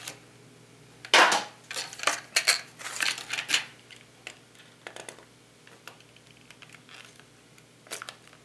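Stiff clear plastic lure packaging crackling and snapping as it is handled and pried open by hand: a cluster of sharp cracks between about one and three and a half seconds in, then a few scattered clicks.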